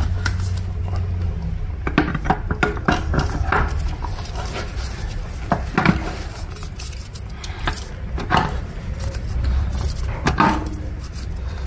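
Irregular metallic clinks and clunks of a CVT torque converter being turned and pushed onto the transmission's input shaft as its splines engage, a few knocks every couple of seconds, some with a short ring, over a steady low hum.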